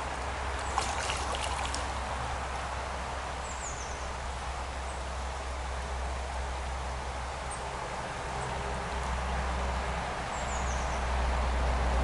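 Shallow gravel-bed stream flowing steadily, with a low rumble that grows near the end. A few sharp clicks come about a second in, and two short high descending chirps come later.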